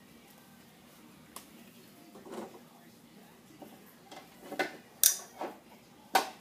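Hard plastic knocks and clatter as a doll is handled against a plastic toy dollhouse: a few scattered taps, then sharper knocks about five and six seconds in.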